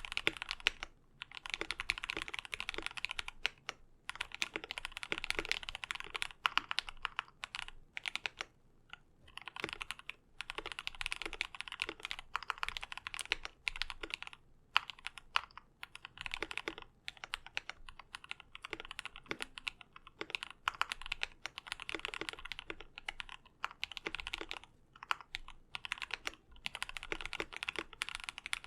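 Typing on a KBD67 Lite R1 mechanical keyboard with Gateron Yellow KS-3 linear switches, lubed with Krytox 205g0 (springs with 105), and stock stabilizers. Rapid keystrokes come in runs of a second or two with short pauses between them.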